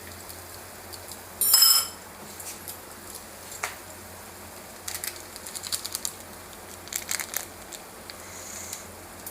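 Kitchen utensils and cookware handled during cooking: one loud metallic clatter with a brief ring about a second and a half in, then scattered light clicks and clinks.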